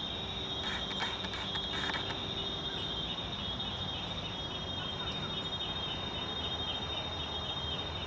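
Steady, high-pitched chorus of insects trilling, with a second, rhythmically pulsing chirp joining about three seconds in, over a low background rumble.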